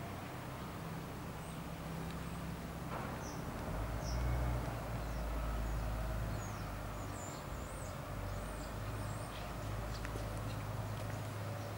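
Small birds chirping in short, high, wavering calls from a few seconds in, over a steady low rumble.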